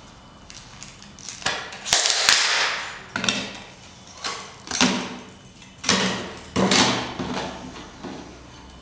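Plastic DVD discs bent, snapped and their foil label layer torn off by hand, giving about six crackling snaps. The longest and loudest crackle comes about two seconds in.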